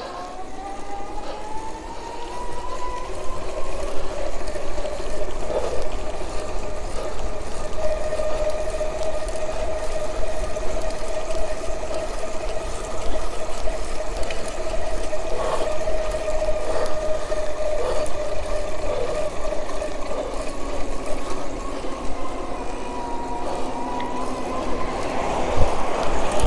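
Alba 500 W electric-bike kit motor whining steadily under way at speed, its pitch rising over the first few seconds and then holding level. Wind rumbles on the microphone underneath.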